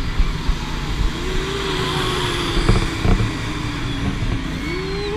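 Steady rushing noise of overhead foam generators blowing foam, with a jittery low rumble of air buffeting the microphone. A faint wavering tone comes and goes from about a second in and again near the end.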